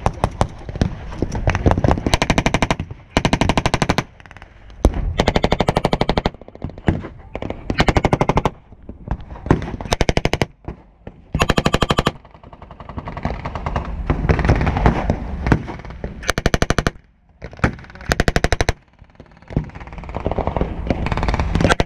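A belt-fed WWII German machine gun firing blanks in short bursts of rapid automatic fire, a dozen or more bursts each about half a second to a second long, with brief pauses between them.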